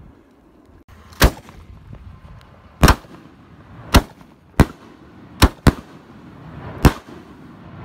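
Epic Thunder aerial firework canister shells going off: seven sharp, loud bangs, the first about a second in, two of them in quick succession past the middle.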